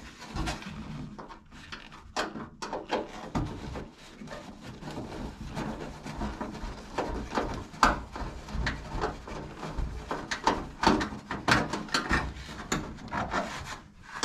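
Irregular scraping, rubbing and clicking as a screw is worked out of the sheet-metal switch panel in the nose of a stainless-steel range hood.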